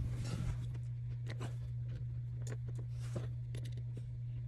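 Faint scattered clicks and light taps from fingers handling a 3D-printed plastic part while a soldering iron presses a brass heat-set insert into it, over a steady low hum.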